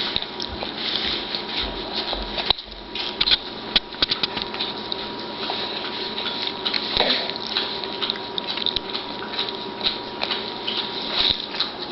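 Irregular small clicks, taps and rustles close to the microphone, with a faint steady high tone underneath.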